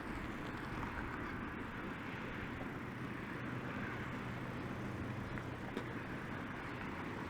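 Steady outdoor background noise: a low, even rumble with a light hiss and no distinct events.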